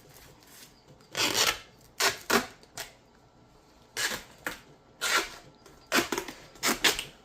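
Short rips of tape being pulled off a roll, about eleven in quick, uneven succession, while Roman candles are taped around a handle.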